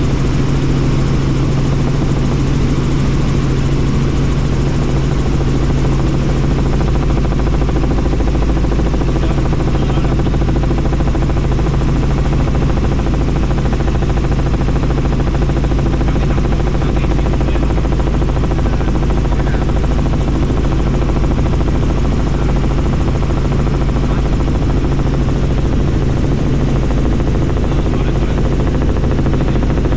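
Bell helicopter's engine and rotor running, heard from inside the cabin: a loud, steady drone with a strong low hum that does not change.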